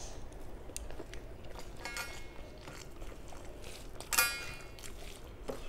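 Mouth sounds of eating, soft chewing and small clicks, as rice and curry are eaten by hand. Two short high-pitched tonal sounds break in, a faint one about two seconds in and a louder one about four seconds in.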